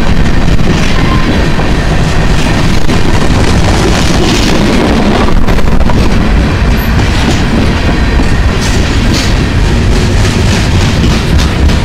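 CSX freight train of tank cars rolling past close by: a loud, steady rumble of steel wheels on the rails, with irregular clattering clicks.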